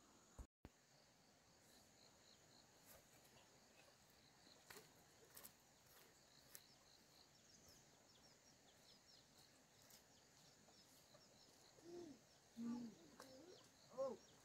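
Near silence: faint rural background with a steady high insect drone and small repeated bird chirps. A few short pitched calls come near the end.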